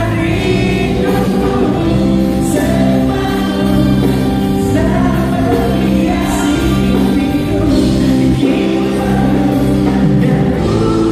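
A live band playing a song with a singer, amplified through an arena's sound system and heard from the stands.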